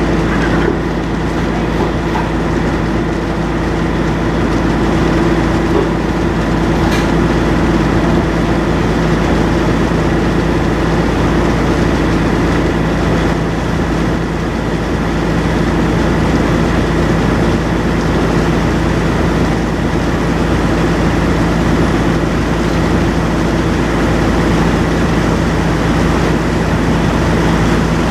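Sightseeing boat's engine running steadily, heard on board as a loud, even drone with a constant low hum.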